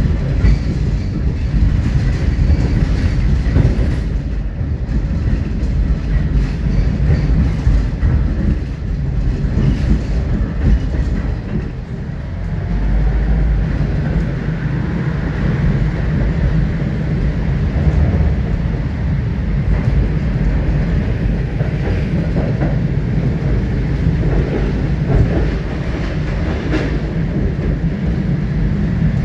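Moderus Alfa low-floor tram running along the track: a steady low rumble of wheels on rails, with a few short clicks.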